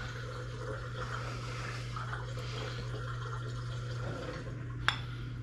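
Thick potato leek soup being ladled from a saucepan into a ceramic bowl: soft liquid sloshing and pouring over a steady low hum, with a single sharp clink about five seconds in.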